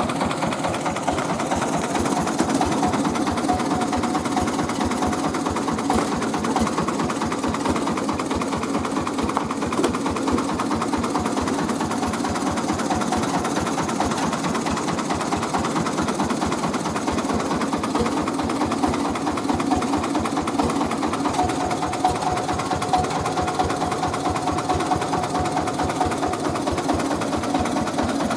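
Mobile rice-milling machine running steadily, its engine and milling works going with a fast, even pulse.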